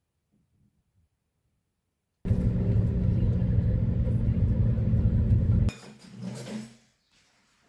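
Steady low rumble of a moving car heard inside the cabin: engine and road noise. It starts abruptly about two seconds in and cuts off abruptly about three and a half seconds later.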